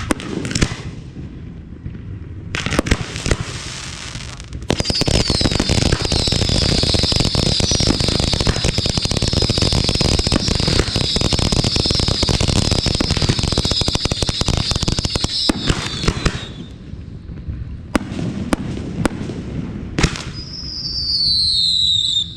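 Aerial fireworks display: a few separate bangs, then a dense barrage of crackling bursts for about ten seconds with a high whistling over it, then scattered bangs and a high whistle falling in pitch near the end.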